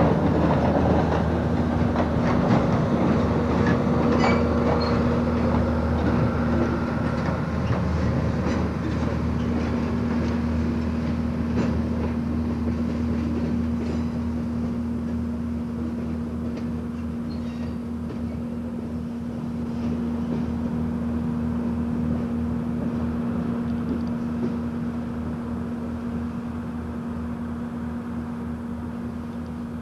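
Freight train's boxcars rolling slowly past on the track: irregular clicks of wheels over rail joints over a steady drone, the sound fading gradually as the train draws away.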